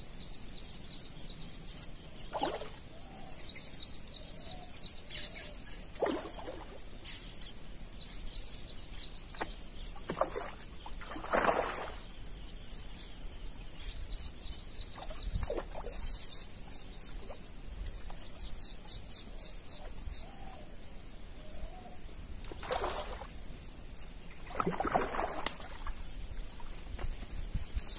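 Riverside outdoor ambience: a steady high insect drone with birds chirping and calling, and a few short, louder calls or swishes scattered through.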